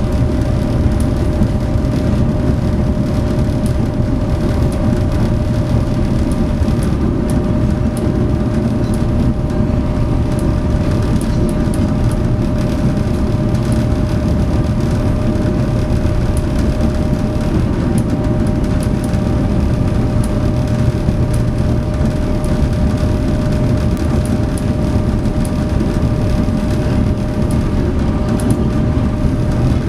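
SeaBus passenger ferry's diesel engines running steadily under way: a loud, constant rumble with a steady hum.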